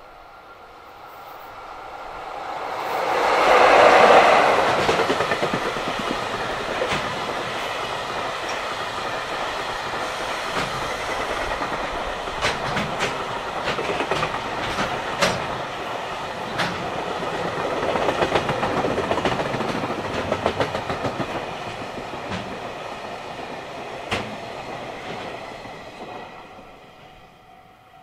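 EF66 electric locomotive hauling a long JR Freight container train past at speed: the locomotive goes by loudest about four seconds in, then the container wagons rumble past with sharp wheel clicks over rail joints, fading away near the end. A level-crossing alarm rings faintly underneath.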